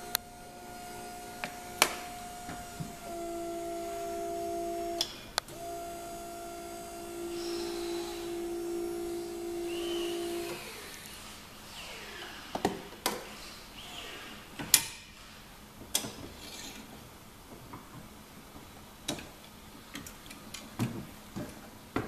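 Electric motor of a 40 kg Brig-Ayd boot hoist running with a steady hum as it lowers a folding powerchair into a car boot, stopping for a moment about five seconds in and cutting off after about ten seconds. Then come scattered clicks and knocks as the chair is unhooked from the hoist strap and settled in the boot.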